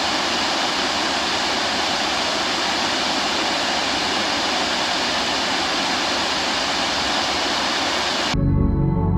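Steady rush of falling water from a waterfall, which stops abruptly near the end.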